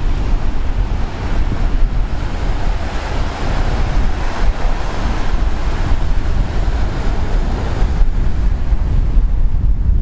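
Strong wind buffeting the microphone as a rough, continuous low rumble, over the steady wash of surf breaking on the shore below.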